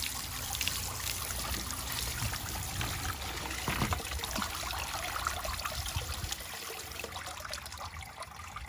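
Garden-hose spray nozzle showering water onto tumbled stones in a stainless steel colander, the water pattering on the stones and mesh and running down into a bucket below, rinsing off the medium grit from the tumbler. The spray is shut off near the end.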